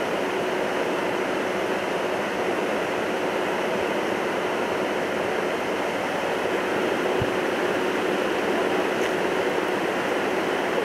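A river in heavy flood rushing over falls: a steady, unbroken rush of whitewater.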